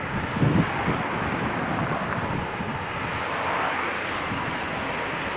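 Cars passing on a road, with tyre and engine noise swelling as one goes by about three to four seconds in. A gust of wind buffets the microphone near the start.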